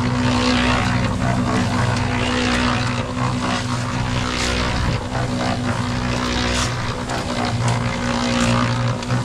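An engine running steadily, with a constant low hum and a noisy hiss and scattered clicks over it.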